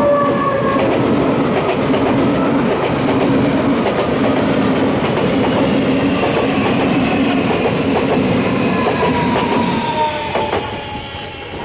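Meitetsu 2000 series and 9500 series electric train pulling into a station: wheels clattering over the rail joints under a steady running noise, with a whine that falls slowly in pitch as it slows. It gets quieter near the end.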